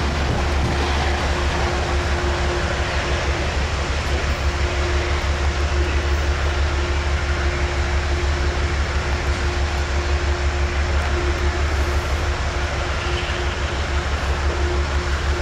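A train running past: a steady, unbroken train noise with a heavy low rumble and a constant hum throughout.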